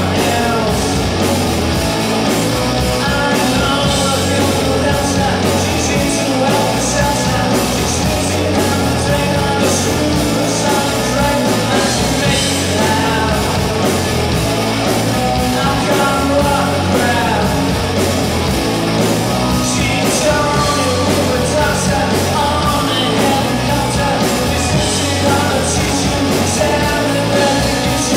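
Live rock band playing loud and steady: a male singer singing into a microphone over two electric guitars, a bass guitar and a Pearl drum kit.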